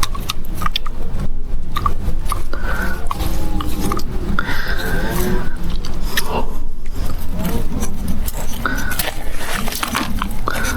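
PVC irrigation pipe being forced into a connector fitting: plastic scraping and knocking in quick irregular clicks, over a constant low rumble.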